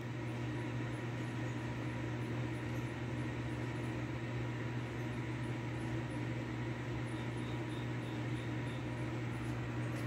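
Vintage Sharp Carousel microwave oven running while it heats food: a steady low hum with an even whir, nice and quiet for a microwave.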